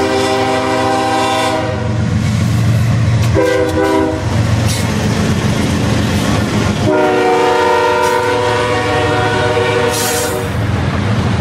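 Diesel freight locomotive's air horn: a long blast ending about a second and a half in, a short blast a couple of seconds later, then a long blast of about three and a half seconds. This is the close of the long-long-short-long grade-crossing signal, heard over the rumble of the passing train.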